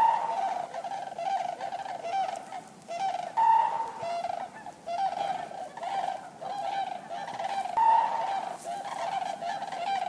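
Common cranes calling: a dense run of short, repeated trumpeting calls from several birds overlapping, with three louder, higher calls standing out.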